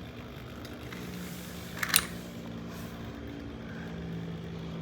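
Two Beyblade X spinning tops whirring steadily in the stadium during a calm stretch of the battle, with a single sharp click about two seconds in.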